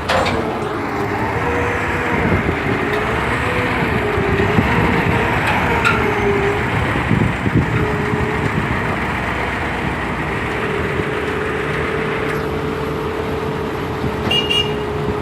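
Heavy truck engine running, with a whine that rises and falls, then holds steady from about ten seconds in. A few short high beeps come near the end.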